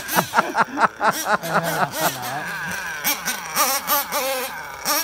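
Wordless human voices laughing and moaning, with a quick run of short laughs in the first second.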